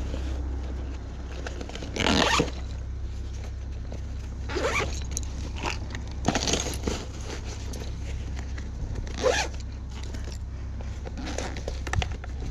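About five short rasping, zip-like strokes a second or two apart, over a steady low hum.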